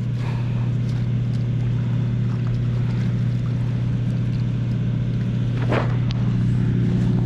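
A steady low mechanical hum, with one brief noise about six seconds in.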